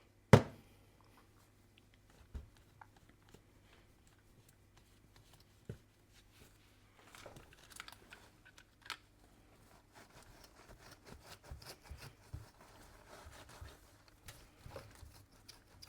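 Small handling noises while cleaning mixing-desk fader tracks. A sharp click comes at the start, followed by scattered light clicks and faint scraping and rustling.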